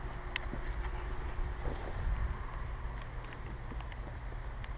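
Wind rumbling on the camera microphone, with a few faint sharp clicks scattered through.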